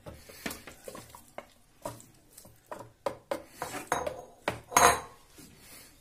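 Wooden spatula scraping and knocking minced mutton out of a bowl into a food processor bowl: a run of irregular clacks and taps, the loudest about five seconds in.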